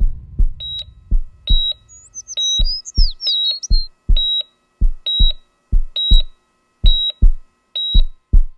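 A steady high electronic beep about once a second, like a hospital heart monitor, over deep low thumps that come in pairs like a heartbeat. A few quick gliding chirps sound in the middle.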